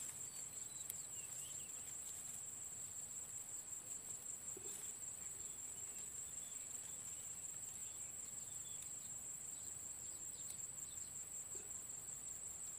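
Crickets trilling steadily at a high pitch, with a few faint clicks and rustles from hands setting a wire spring rat trap in dry grass.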